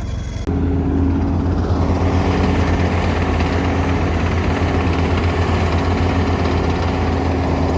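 All-terrain vehicle's engine running steadily with a low, even drone, coming in abruptly about half a second in.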